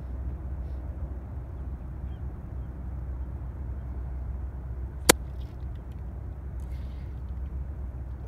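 Steady low outdoor rumble, with one sharp click about five seconds in.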